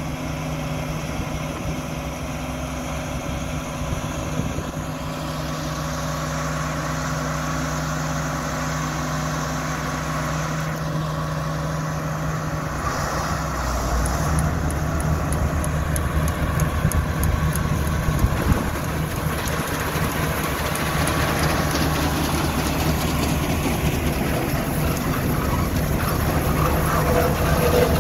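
John Deere combine's diesel engine running steadily, growing louder about halfway through.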